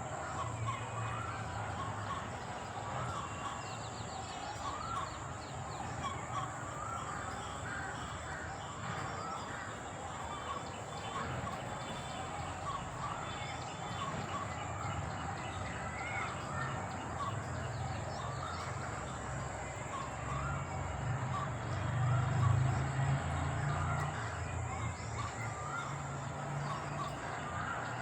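Crows cawing among a chorus of short, repeated bird calls. A low rumble swells briefly about two-thirds of the way through.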